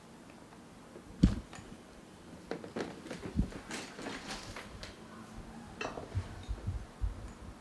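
Scattered knocks and taps, the loudest a single sharp knock about a second in, with a run of soft low thumps near the end.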